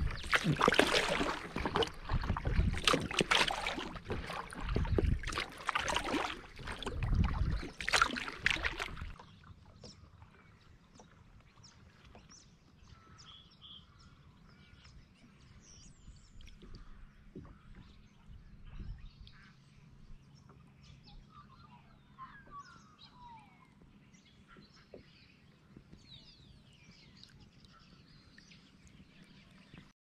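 Kayak paddle strokes splashing close by, a stroke about every two seconds, for the first nine seconds. Then calm water with faint, scattered bird chirps.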